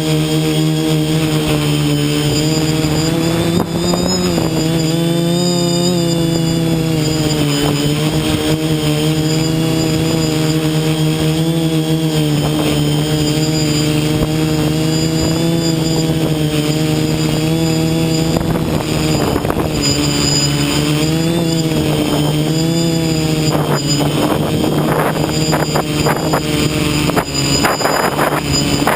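Multirotor drone's electric motors and propellers running in flight, a steady whine whose pitch keeps rising and falling as the throttle changes.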